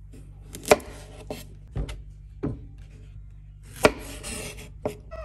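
Knife slicing a zucchini on a wooden cutting board: about six sharp knocks of the blade on the board, the two loudest each trailed by a short scraping rasp as the blade draws through the flesh.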